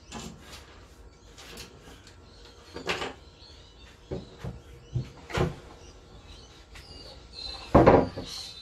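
Wooden knocks and clunks from a pine board being handled on a plank floor. A few separate knocks come first, then the loudest cluster of knocks and scraping near the end as the board is shifted and lifted.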